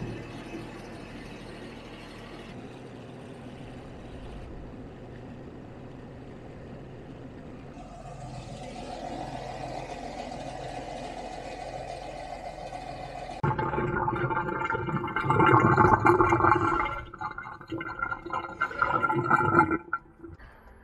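DAF LF truck diesel engine idling steadily. About two-thirds of the way through, a much louder sound with several steady pitched tones cuts in abruptly and wavers on and off until near the end.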